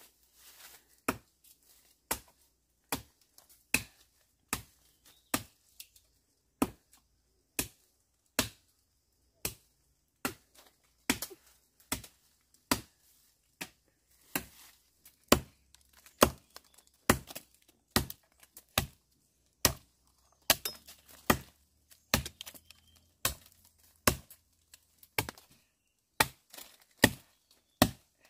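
A blade chopping into wood with sharp, regular strikes, about one a second at first and coming faster, about two a second, from around halfway.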